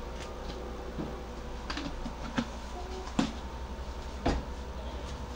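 Tomato sauce simmering in a small pot on a gas burner: a few separate soft pops from bursting bubbles over a steady low hum.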